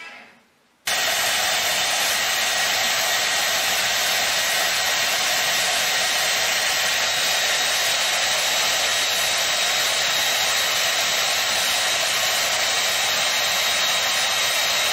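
Handheld hair dryer running, a steady blowing rush with a thin high whine. It starts abruptly about a second in.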